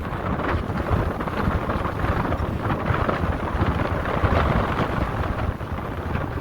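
Wind buffeting the microphone, a gusty low rumble with a rushing hiss.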